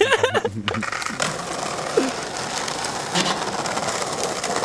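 Skateboard wheels rolling over stone paving slabs: a steady rattling rumble.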